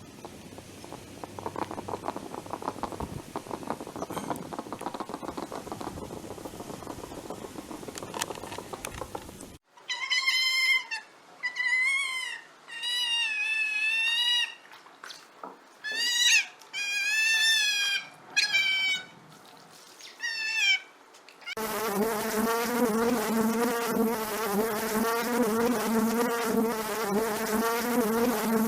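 A run of separate animal clips: first a noisy rustling stretch, then about a dozen short, high, wavering animal calls, and from about two-thirds of the way through a steady buzz of flying insects.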